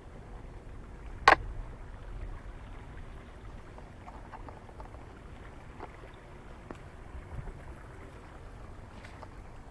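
Outdoor ambience: a steady low rumble with one sharp, loud knock about a second in, then faint scattered ticks.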